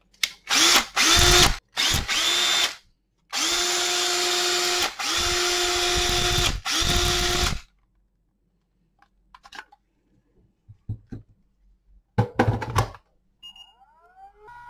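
Makita 18V cordless drill run in short trigger pulls: three quick blips, then three longer runs of a second or so each, the motor whine rising fast to a steady pitch each time. Its cooling-fan air blows straight onto the microphone and adds a loud hiss. The drill is running off the rebuilt BL1815 pack, with its new cells and replacement protection board.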